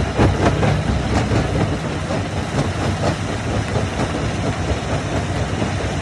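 Heavy diesel machinery at a rock-crushing site running steadily, with irregular knocks and clatter of rock, thickest in the first second.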